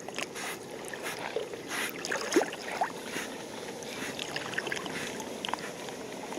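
River running high and muddy after a typhoon, a steady rush of water, with scattered light clicks and rustles over it.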